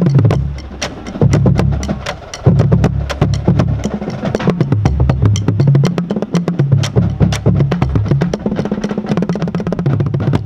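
A five-drum marching bass line of pitched Pearl bass drums played with mallets, running fast split patterns, the notes stepping up and down in pitch from drum to drum. A steady run of sharp clicks sits over the drum notes.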